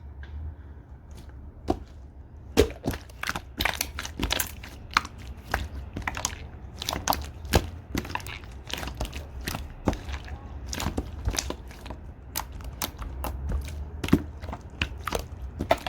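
Slime being squeezed and pressed by hand, giving quick irregular sharp clicks and pops, few at first and then coming thick and fast after about two and a half seconds, over a faint low hum.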